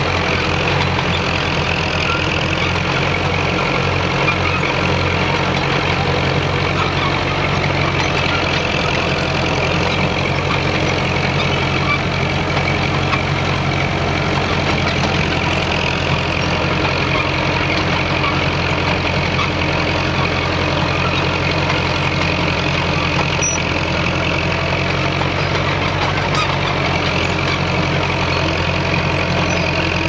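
Track-Marshall crawler tractor's diesel engine running steadily under load as it tows a plough through the field.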